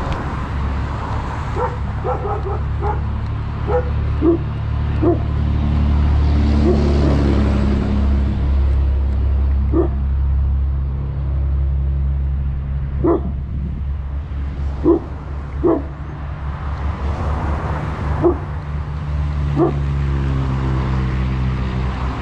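A dog barking about a dozen times in short single barks, spread irregularly, over a steady low engine rumble.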